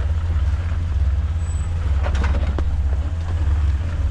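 Jeep Wrangler engine running at low revs, a steady deep rumble. A few short knocks come about two seconds in.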